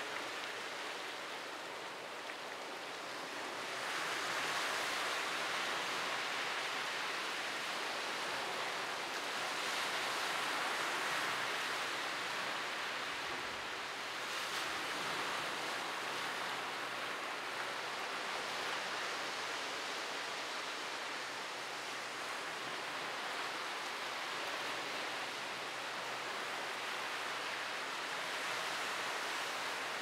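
Sea surf breaking on the shore: a steady hiss of waves that swells and eases every several seconds.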